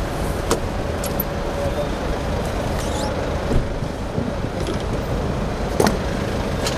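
Steady rumble of road traffic and an idling vehicle, with a few sharp clicks scattered through it.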